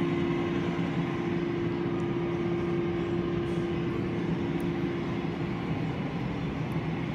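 Steady mechanical hum with a constant low droning tone over an even background rush.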